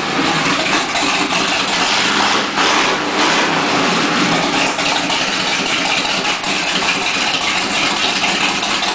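A jet boat's engine running loud and steady through its open, upright exhaust pipes.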